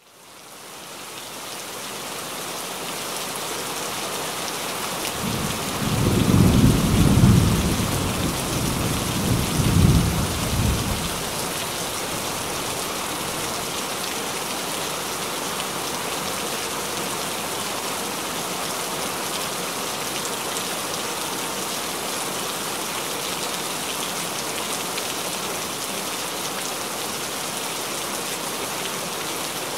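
Steady heavy rain, fading in over the first couple of seconds, with a low roll of thunder rumbling from about five seconds in, swelling twice and dying away by about eleven seconds.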